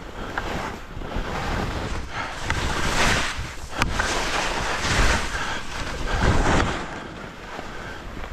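Skis hissing over snow with wind buffeting the microphone, the rushing noise swelling louder three times.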